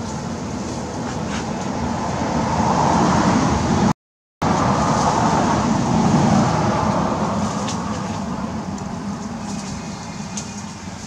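A road vehicle passing: its steady running noise swells over a few seconds, holds, then slowly fades away. The sound cuts out completely for a split second about four seconds in.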